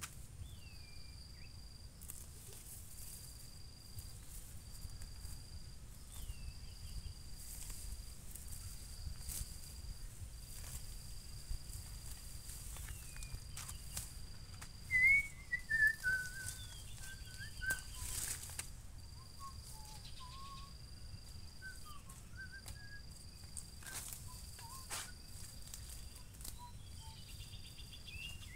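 Birds calling in short falling chirps, loudest about halfway through, over a high insect trill that breaks off and restarts over and over. Scattered light snaps and rustles come from weeds being pulled by hand.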